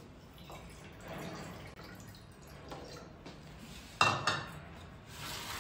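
Crockery handling and a little water as dried red chillies and whole spices are put into a bowl of water to soak. Faint clinks and trickling are followed by a sudden, louder clatter about four seconds in.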